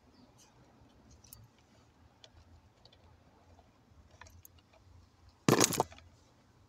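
Faint clicks and rustles of car wiring and connectors being handled under the dashboard, with one loud, short burst of noise lasting under half a second about five and a half seconds in.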